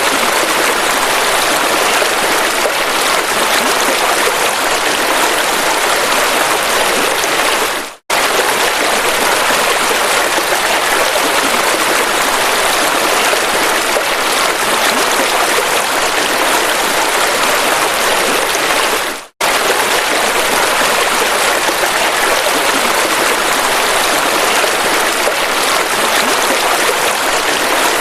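A river rushing steadily, a dense, even hiss of flowing water. It cuts out to silence for an instant twice, about eight seconds in and again near nineteen seconds, as the recording is joined.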